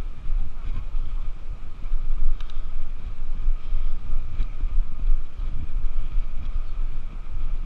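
Wind buffeting the camera microphone of a moving bicycle, with a faint steady high whine under it. There are two light clicks or rattles from the bike on the path, a couple of seconds apart.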